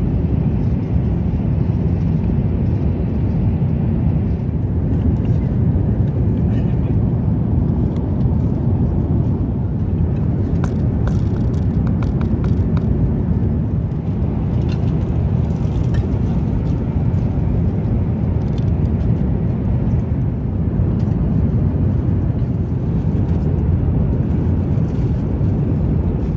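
Steady low rush of an Airbus A350-900 airliner cabin in cruise, engine and airflow noise, with a few faint clicks about ten to thirteen seconds in and again near sixteen seconds.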